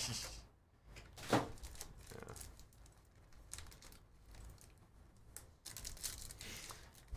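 Foil wrappers of trading card packs crinkling and being torn open by hand, with a single knock about a second in.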